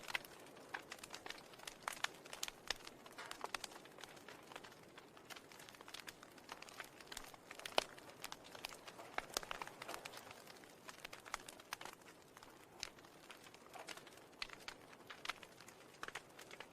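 Quiet, irregular crackling and clicking, many small sharp ticks at uneven spacing over a faint hiss.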